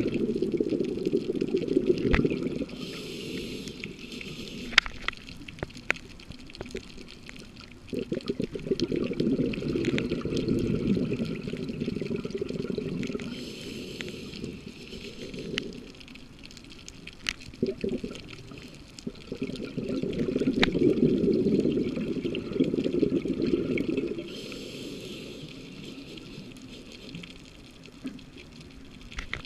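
Scuba diver breathing through a regulator underwater: slow breaths about every ten seconds, each a short hiss of inhalation followed by a long stretch of bubbling exhaust bubbles. Scattered sharp clicks run underneath.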